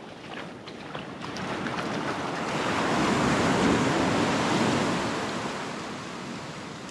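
Ocean surf: a wave breaks and washes up the beach, a rushing hiss that swells over a couple of seconds and then fades away.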